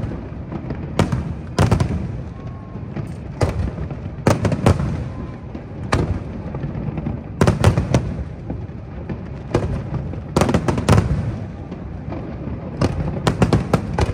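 Aerial fireworks display: shells bursting in a string of sharp bangs, some in quick clusters, over a continuous low rumble, with a fast run of pops near the end.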